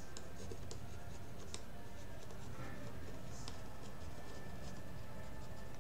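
Faint scratching and light ticks of a stylus writing on a pen tablet, over a steady low background hum.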